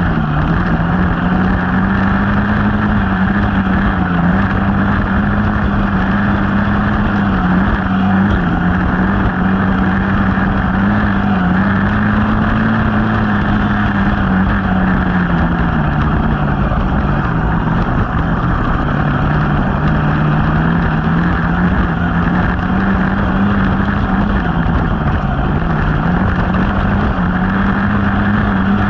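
Yamaha dirt bike engine running hard along a trail, its pitch holding steady and dipping briefly now and then as the throttle eases, under a constant rush of noise.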